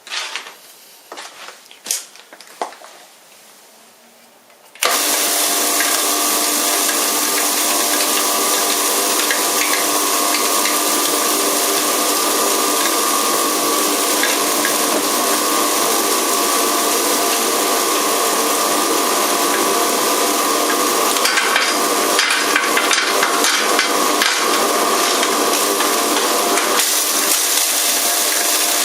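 A few knocks and clicks, then about five seconds in an electric hammer mill herb grinder starts abruptly and runs loud and steady with an even whine. A rougher, crackling rattle joins it for several seconds past the middle, then eases off.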